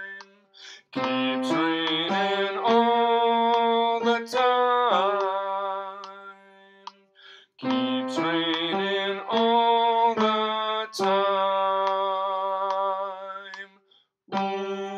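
Piano playing a slow, jazzy song melody while a man sings along without words, the same phrase heard twice, the second starting about halfway through.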